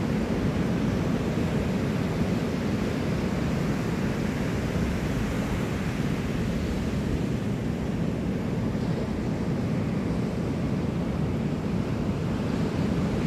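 Steady roar of ocean surf breaking on the beach, mixed with wind on the microphone.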